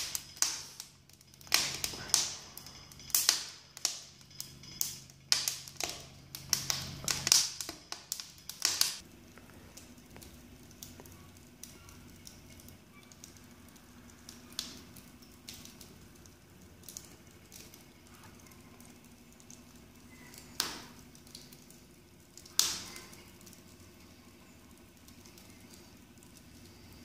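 Broken pallet wood crackling and popping in the open firebox of a wood-burning kitchen range: sharp pops come thick and loud for the first several seconds, then only a few fainter ones. A low steady hum sits underneath.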